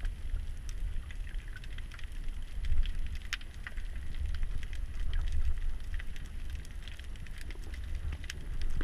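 Underwater reef ambience: a steady low rumble of water moving against the camera housing, overlaid with scattered sharp clicks and crackles of the kind snapping shrimp make on a reef, one louder click a little over three seconds in.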